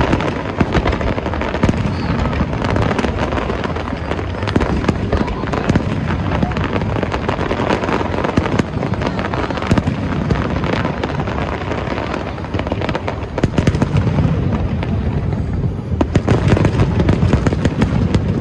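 Aerial fireworks display: a continuous rapid barrage of shell bursts and crackling with a low rumble underneath. The bursts come denser and louder near the end.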